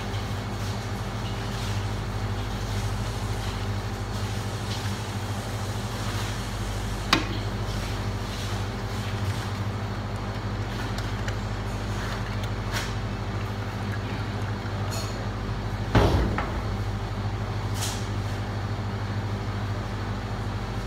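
A steady low mechanical hum, like a running engine or machinery, with two sharp knocks: one about seven seconds in and a louder one with a brief ring about sixteen seconds in.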